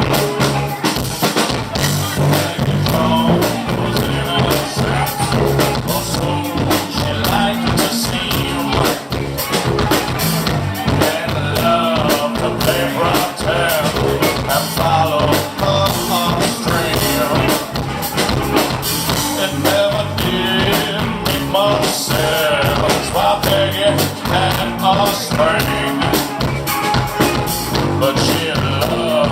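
A live rock band playing, with a drum kit keeping a steady beat under a wavering melodic line.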